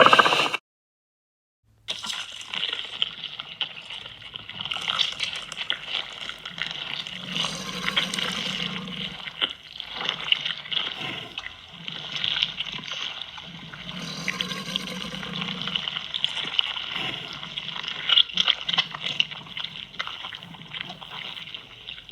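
Made-up dinosaur sound effect for Nanuqsaurus: a continuous rasping, crackling texture full of small clicks, with low rumbles that swell and fade several times.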